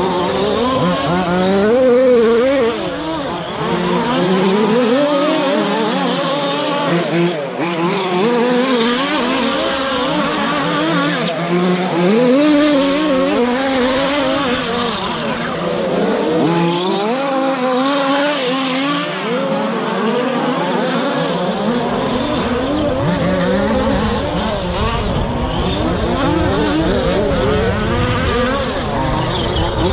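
Several radio-controlled short course trucks racing, their motors overlapping, each rising and falling in pitch as they accelerate and brake around the track.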